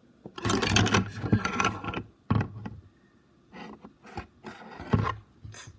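Handling noise from objects being moved and knocked on a hard surface: about a second and a half of rustling and scraping, then a string of short knocks and scuffs.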